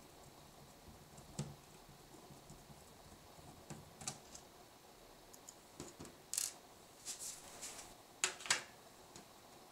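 Small screwdriver clicking and scraping against the plastic base of a bathroom scale as it works at a foot recess: scattered light clicks and taps, the loudest two close together near the end.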